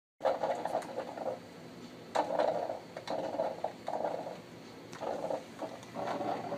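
Flutter of wingbeats and splashing from a huge flock of cormorants taking off and flying low over the water, coming in uneven surges.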